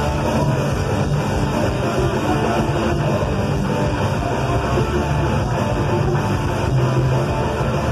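Rock band playing live: electric guitars over a drum kit, steady and loud throughout.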